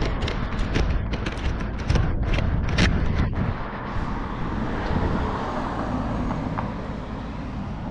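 A quick run of sharp clicks and metallic knocks as a fixed-gear bike whose chain has come off the chainring is handled and laid down, giving way after about three and a half seconds to a steady rush of road traffic.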